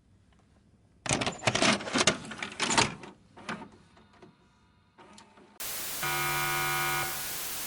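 Clattering and rustling for about two seconds, then a single click. Then a hiss comes in and a steady electronic alert tone with several pitches sounds for about a second.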